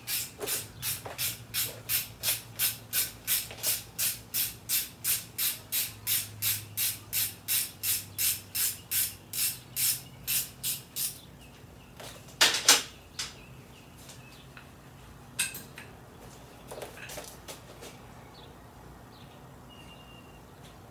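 Rapid, even scraping or brushing strokes, about three a second, that stop after some eleven seconds, followed by two louder scrapes and a few faint knocks.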